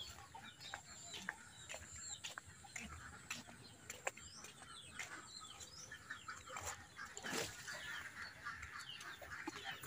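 Faint farmyard background of fowl calling and small birds chirping in short high calls, with scattered light clicks of footsteps.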